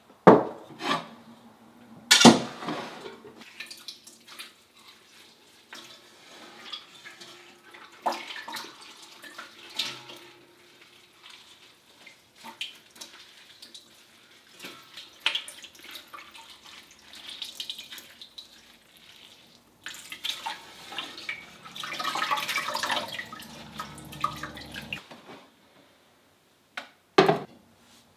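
Water running and splashing, with scattered knocks and clinks of pots and utensils being handled. A denser stretch of water noise comes a little after the middle.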